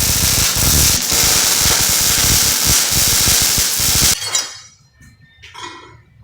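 MIG welder laying a bead: a loud, steady, dense crackle that cuts off abruptly about four seconds in, followed by a faint short knock.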